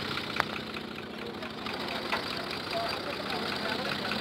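Engine idling steadily with an even, rapid clatter; a sharp click about half a second in and another about two seconds in.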